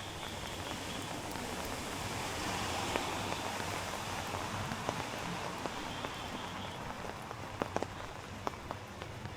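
Steady rain falling on a city street, an even hiss that swells a little a few seconds in, with scattered sharp ticks.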